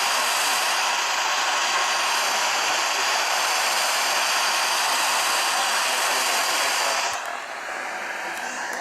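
Steady radio static hiss from a weather radio receiver with weak reception. It eases briefly near the end, then comes back.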